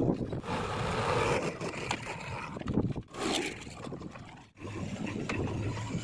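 Diesel engines of a JCB 3DX backhoe loader and a Sonalika tractor running at work. The sound breaks off abruptly about three seconds in and again a second and a half later.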